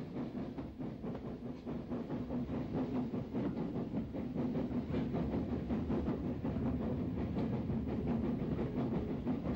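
UTA WT class 2-6-4 tank steam locomotive working hard up a steady climb, heard from its footplate: a fast, even run of exhaust beats and wheels on the rails.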